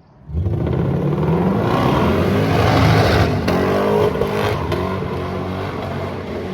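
Car engine revving hard under full throttle as the car is launched into a drift attempt, its note climbing over the first few seconds and then easing, with tyre noise over it.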